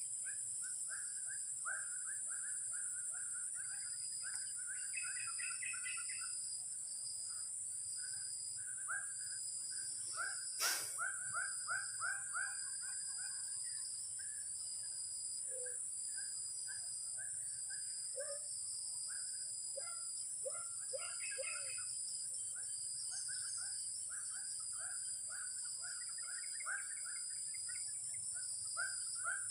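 Birds chirping in quick runs of short repeated calls over a steady high insect drone, with one sharp click about eleven seconds in.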